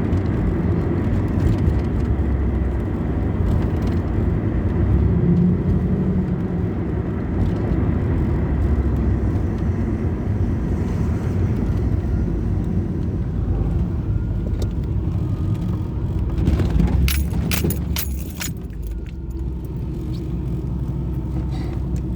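Chevrolet Camaro IROC-Z V8 running at a rough idle, the warm-engine rough running that leads to stalling. A few sharp clicks or rattles come near the end.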